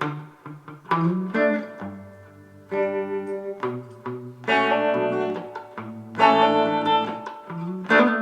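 Guitar playing a song's intro: chords sounded one after another, each ringing out, with low bass notes under them.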